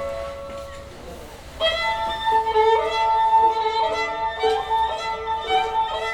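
Recorded music played back over Børresen Z2 Cryo Edition loudspeakers: a held note fades out, and about a second and a half in a louder melody of sustained notes begins.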